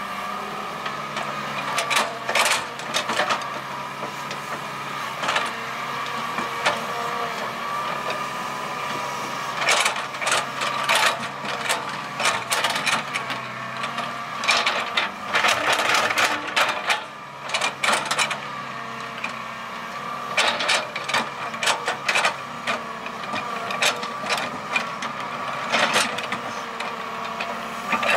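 Hitachi hydraulic excavator working: its diesel engine runs steadily under a wavering hydraulic whine. Bursts of clunks and clatter come repeatedly as the steel bucket digs into and dumps loose soil and clods.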